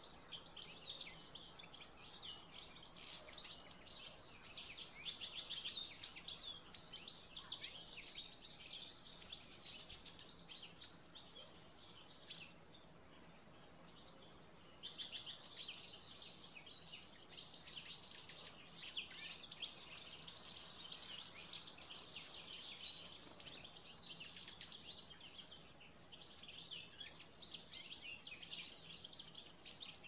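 A chorus of small songbirds chirping and twittering without a break, with thin high notes repeated about once a second. Two loud rapid trills stand out, one about ten seconds in and one about eighteen seconds in.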